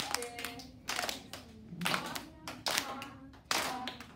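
A class of young children clapping their hands together in time, a run of group claps.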